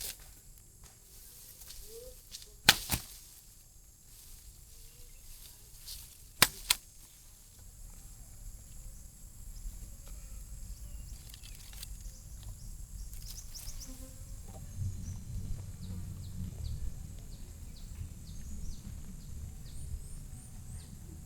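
Two sharp knocks, the second one doubled, a few seconds apart, then a low rumble that sets in about two-thirds of the way through and runs on unevenly, with faint high chirps near the end.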